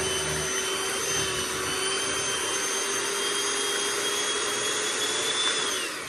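Electric hand mixer running steadily with a whine, its beaters churning thick investment slurry in a cup. Near the end its pitch falls as it winds down.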